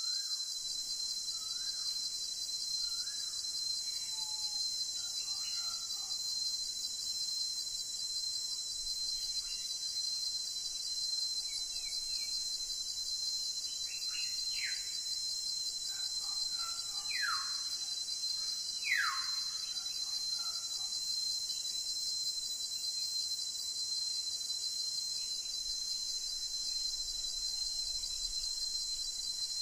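Steady high insect chorus running throughout, the loudest sound, with scattered bird calls over it: short chirps in the first few seconds and a few quick falling whistles around the middle.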